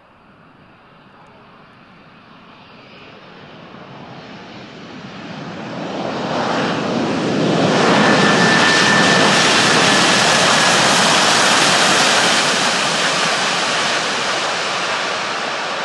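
Embraer KC-390's twin turbofan jet engines during a pass overhead. The jet noise swells steadily for about eight seconds to a loud peak, holds, then eases off a little as the aircraft goes by. A thin engine whine drops slightly in pitch at the peak.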